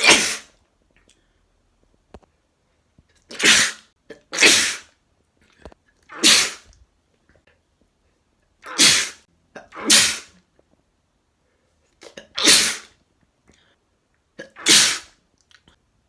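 A man sneezing about eight times in a row, wet sneezes. Each is a short, sharp burst, some with a quick intake of breath just before, and two pairs come about a second apart.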